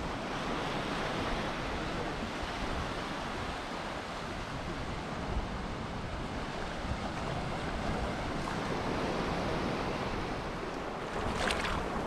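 Small sea waves washing onto a sandy beach in a steady hiss, with wind rumbling on the microphone. A brief, sharper splash-like hiss comes near the end.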